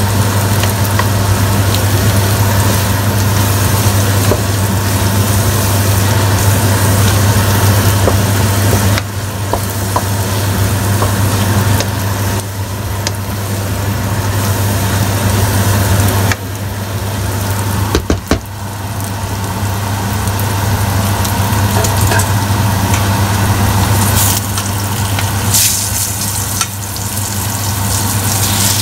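Bitter melon, egg and tomato sizzling in a stainless steel pot while being stirred with a wooden spatula, over a steady low hum. A couple of sharp clicks come about 18 seconds in.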